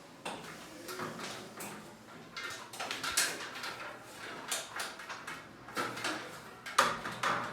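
Irregular knocks, scrapes and rustling of tools and equipment being handled, with a sharper knock near the end.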